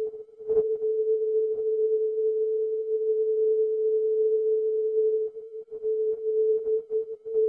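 Longwave non-directional beacon ZO on 423 kHz, received on a software-defined radio in CW mode: a steady beat tone a little below 500 Hz over faint static. Sharp static crackles come about half a second in and again about a second and a half in. In the last couple of seconds the tone chops in and out.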